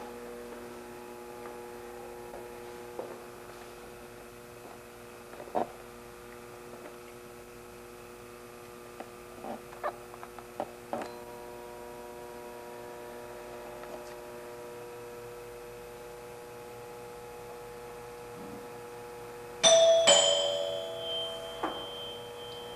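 A two-note doorbell chime rings out suddenly near the end, the two notes about half a second apart, then dies away over a couple of seconds. Beneath it runs a steady hum of several held tones with a few faint clicks.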